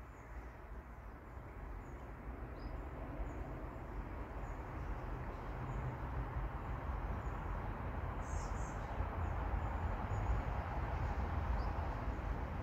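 Outdoor ambience: a steady low rumble and hiss that slowly grows louder, with faint, high bird chirps about once a second and a brief louder chirping about eight seconds in.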